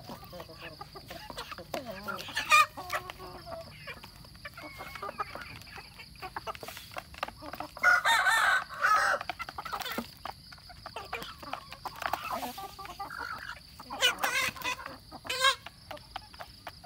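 A flock of roosters and hens clucking while they feed, with many small clicks of beaks pecking at the ground and feed plates. A louder, drawn-out call comes about eight seconds in, and more calls come near the end.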